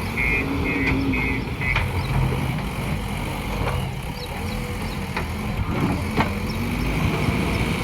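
JCB 3DX backhoe loader's diesel engine running steadily at work, with its reversing alarm beeping rapidly over the first two seconds and a few sharp knocks.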